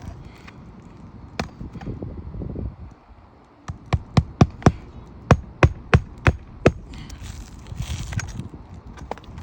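Hammer driving roofing nails by hand into an asphalt shingle: about a dozen sharp strikes in two quick runs, roughly three a second, with scuffing and rustling of shingles before and after.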